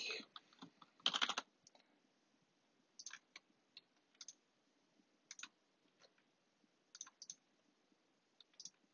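Computer mouse clicking: short sharp clicks, often in quick pairs, every second or so, with a louder quick rattle of clicks about a second in.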